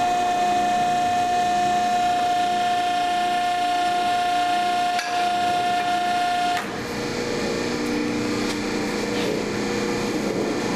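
Ben-Bend 2000 hydraulic exhaust pipe bender's pump running with a steady high whine while it bends a steel tailpipe. About six and a half seconds in the whine cuts off and the machine runs on with a lower, quieter hum.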